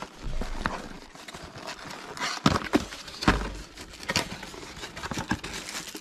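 A small cardboard box being handled and opened by hand, its flaps scraping and snapping, with plastic wrapping crinkling as a part is taken out. Irregular rustles and clicks, with a few sharper snaps in the middle.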